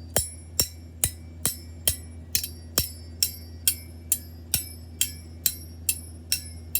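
Two forks struck together again and again, a little over two strikes a second, each a sharp clink with a short high ringing.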